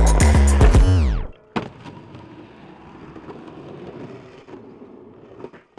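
Music with a beat whose pitch sinks as it slows to a stop and cuts out about a second in. Then a sharp clack and the quieter rolling rumble of skateboard wheels on concrete, with a few light clicks.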